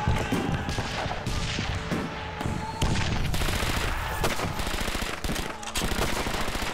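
Battle gunfire: dense, rapid rifle and machine-gun fire, shot over shot, growing louder about three seconds in.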